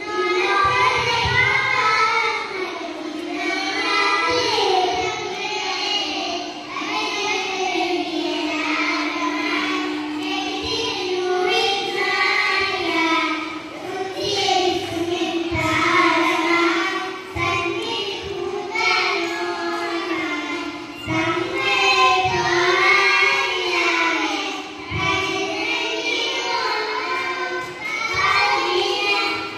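Children singing a melodic song with music behind, one note held for a few seconds near the middle.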